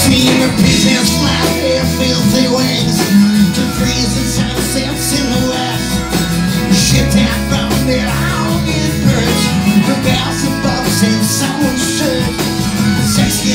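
Live rock band playing a country-tinged rock song with strummed acoustic guitar, electric bass and drums, and harmonica played into a vocal microphone.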